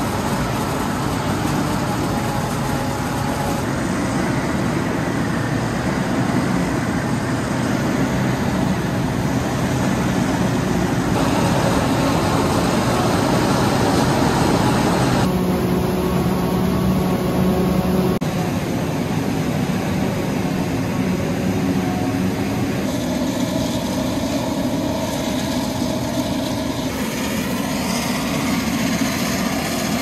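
Claas Jaguar 970 forage harvester running under load, chopping corn and blowing the chopped silage out of its spout: a loud, steady machine drone. Its tone shifts at a few points where the shot changes.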